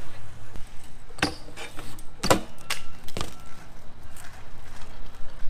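BMX bike riding on concrete: a low rolling rumble from the tyres, broken by several sharp knocks and clatters from the bike hitting the concrete, the loudest a little past two seconds in.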